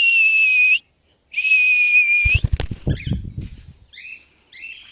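Two long, steady whistle blasts, the command cue a free-flying cockatiel is trained to take off on. A low fluttering flurry follows, then a few short rising chirps.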